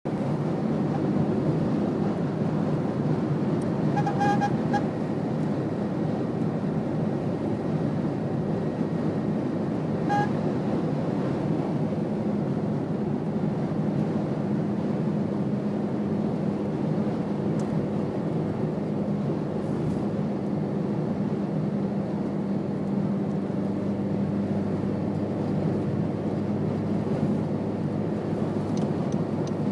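Honda CR-Z running: a steady low rumble, with a steadier hum coming in about halfway through and short high-pitched pips around four and ten seconds in.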